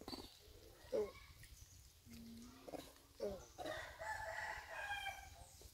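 A rooster crowing: one long call of about two seconds starting a little past halfway. Shorter calls come before it.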